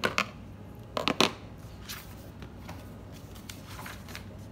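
Paper instruction leaflet being handled and unfolded: a crisp rustle at the start and a louder double rustle about a second in, then faint scattered paper crackles.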